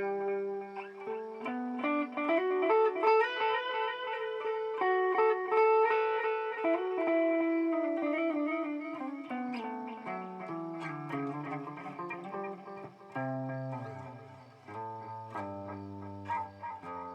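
Electric guitar played through a BOSS DD-8 digital delay pedal in Warp mode. Picked notes ring on as overlapping delay repeats that build into a dense wash, then thin out as lower notes come in after the middle.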